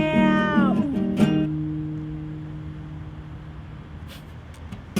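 Acoustic guitar and voice ending a song: the held last sung note bends and stops about a second in, a final guitar strum follows, and the chord rings and slowly fades out.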